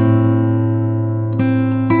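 Background music on acoustic guitar: plucked chords that ring on, with new notes struck at the start and twice more in the second half.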